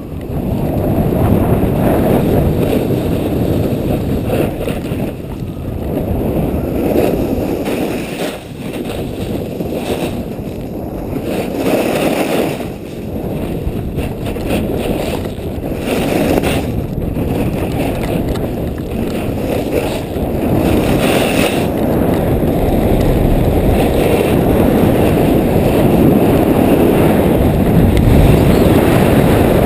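Strong wind buffeting the microphone of an action camera on a fast snowboard run, mixed with the board sliding and scraping over groomed snow. The rumbling rush swells and eases with the turns.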